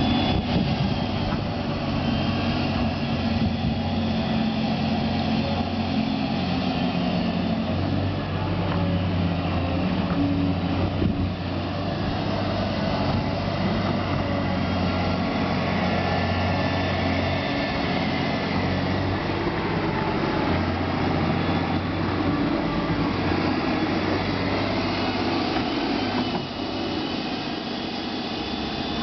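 Caterpillar 320 excavator's diesel engine running steadily on a post-repair check, its low note shifting a few times and dropping slightly in loudness near the end.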